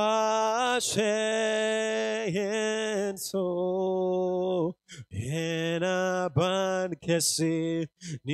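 A man's voice chanting in long sung phrases into a handheld microphone, holding steady notes with short breaks for breath between phrases.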